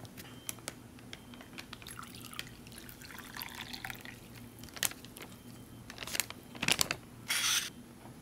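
Hot coffee poured from a plastic beverage bag into a ceramic mug, a faint trickle, followed by a few light clicks and a short rustle near the end.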